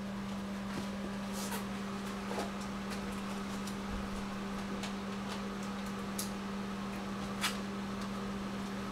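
Several light taps and clicks of rubber flip-flop sandals being handled on carpet by a toddler, the sharpest about a second and a half in and again near the end, over a steady low hum.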